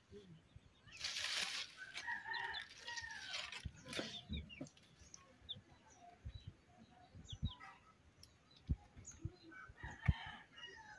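Chickens: a rooster crowing a couple of seconds in, with scattered clucking, and a few short knocks later on.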